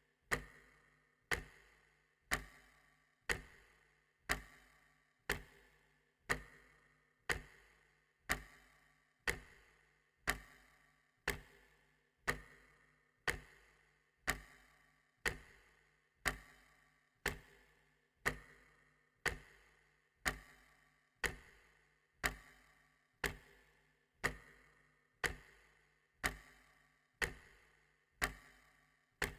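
Clock ticking steadily, about one sharp tick a second.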